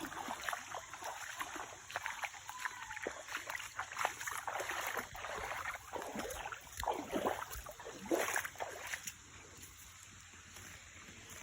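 Irregular splashing and scuffing footsteps along a stream, with a few louder splashes, easing off about nine seconds in to a faint steady hiss of running water.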